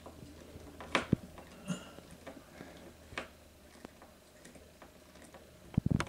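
Scattered clicks and knocks of a hand screwdriver working a screw into the wall for a curtain-rod bracket, with sharper knocks about a second in and a louder cluster near the end.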